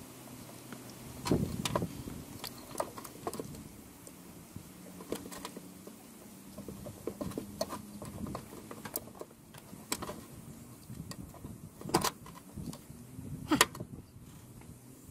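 Scattered clicks, knocks and metallic clinks of an ignition coil, its mounting bracket and wiring connectors being handled and fitted by hand, with a cluster of louder knocks just over a second in and two sharp knocks near the end.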